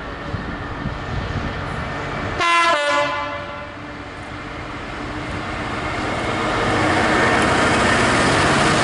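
EWS Class 66 diesel locomotive, with its two-stroke V12 engine, approaching and passing at the head of a container freight train. It gives one short horn blast about two and a half seconds in, then its engine and wheel noise grow louder as it draws alongside.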